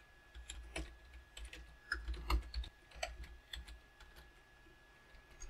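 Typing on a computer keyboard: irregular, faint keystrokes that stop about four and a half seconds in.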